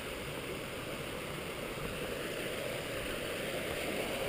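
Small woodland brook running over rocks: a steady rushing hiss.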